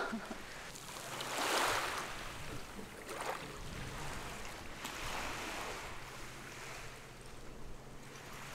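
Small waves washing onto a pebble beach, the wash of water and stones swelling up and dying back several times, loudest about one to two seconds in. A faint steady low hum runs underneath.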